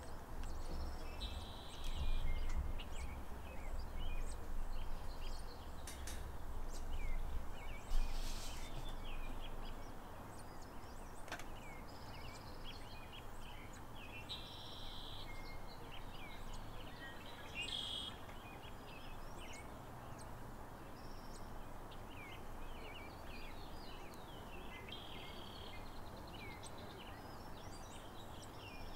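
Mallard ducklings peeping: many short, high, thin calls coming on and off throughout over a steady outdoor noise bed. A low rumble sits under the first third.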